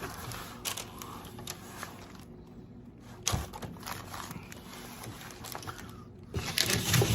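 Close handling noises: scattered clicks, light scrapes and a few sharper knocks, with the loudest knocks about three seconds in and a cluster near the end.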